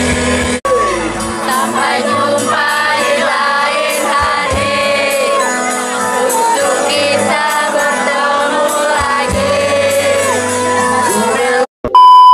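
Music with a sung vocal line, cut off near the end by a brief dropout. A loud, steady, high test-tone beep follows, the tone of a TV colour-bars screen.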